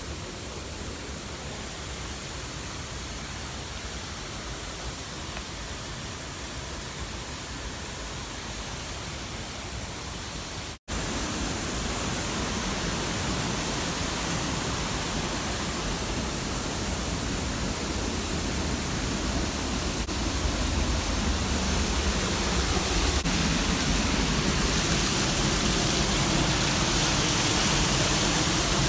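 Waterfall rushing, a steady even roar of falling water. It cuts out for an instant about eleven seconds in and comes back louder, swelling slightly toward the end.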